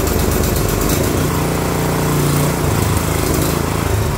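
Kawashima GE700B 7 hp, 208 cc single-cylinder four-stroke gasoline stationary engine running right after a cold start on the first pull with the choke closed. Its speed rises a little between about one and two and a half seconds in, then settles back.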